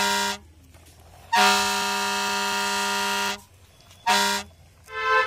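Truck air horn sound effect honking: a short blast, a long blast of about two seconds, then another short blast. Near the end a higher-pitched horn starts.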